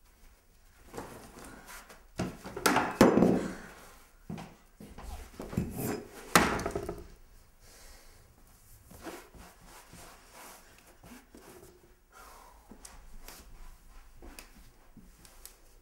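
A series of knocks and thumps in a small room, loudest about three seconds and six and a half seconds in, followed by fainter scattered knocks and handling sounds.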